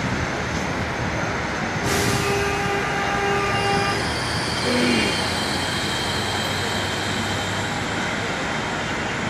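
Steady loud engine and street noise. About two seconds in, a steady pitched tone starts suddenly and lasts about two seconds.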